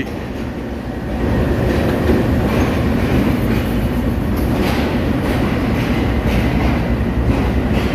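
Passenger train at a station platform, a steady rumble with a few faint clacks from the wheels and coaches.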